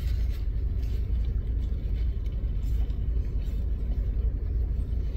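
Steady low rumble inside a parked car's cabin, most of it deep bass with no distinct events.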